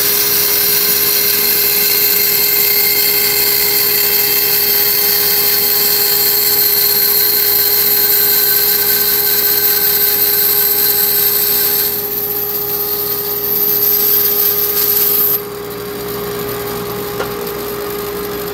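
Bandsaw with a large blade cutting through a thick laminated block of hardwood and plywood: a steady motor hum under loud cutting noise. Near the end the cutting noise stops abruptly and the saw runs on free, quieter.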